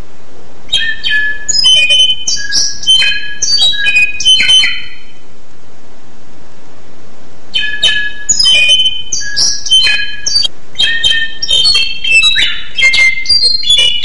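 A songbird singing two long phrases of quick, varied whistled notes mixed with harsh rasping ones, the second starting about halfway through, over a steady hiss.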